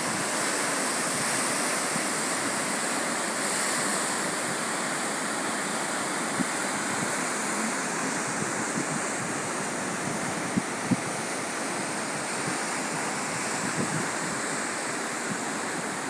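Steady rush of sea surf breaking on the shore, with a few brief ticks a little past the middle.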